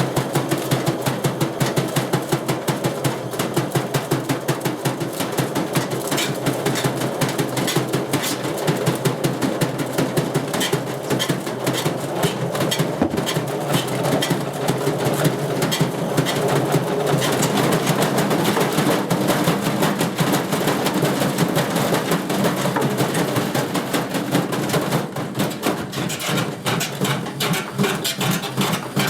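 Old washing machine running off balance, its drum and cabinet knocking fast and evenly, about four knocks a second, turning more uneven near the end.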